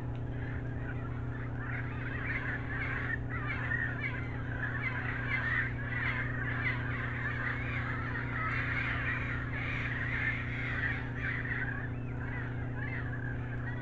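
A dense, continuous chorus of forest birds calling, swelling in the middle, over a steady low hum.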